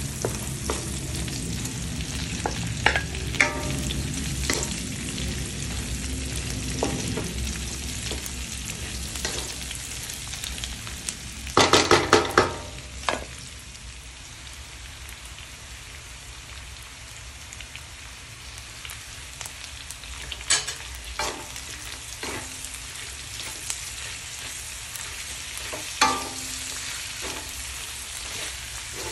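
Sliced onions and pork belly frying in a stainless steel wok, sizzling steadily while a wooden spatula stirs and scrapes them, with scattered knocks of the spatula on the pan. About twelve seconds in comes a loud burst of clattering and sizzling, after which the frying is quieter.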